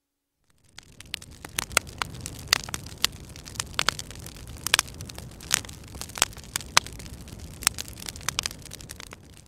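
Fire crackling: irregular sharp pops over a steady low rumble. It fades in about half a second in and fades out at the end.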